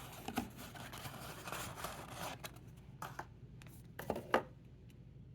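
Unboxing packaging being handled: scratchy rustling and scraping for about two and a half seconds, then a few sharp clicks and knocks, then quieter.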